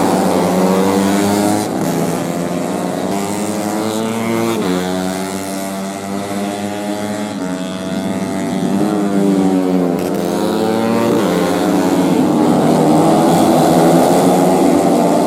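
Several tuned four-stroke underbone race motorcycles running at once, their engine pitches rising and falling and crossing each other.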